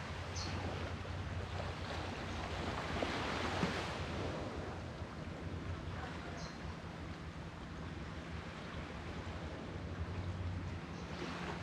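Sea waves washing in, one swelling to its loudest about three and a half seconds in and then drawing back, over a steady low hum.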